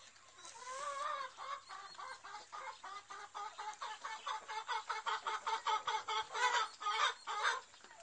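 Hen clucking: one drawn-out wavering call about a second in, then a fast, steady run of clucks, about four or five a second, that grows louder toward the end.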